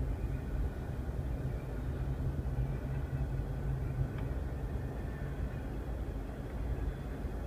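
Union Pacific double-stack container freight train rolling past, a steady low rumble heard from inside a car's cabin.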